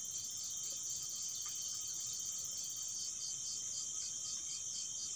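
Insects chirping: a steady high-pitched drone with an evenly pulsed chirp repeating about three to four times a second.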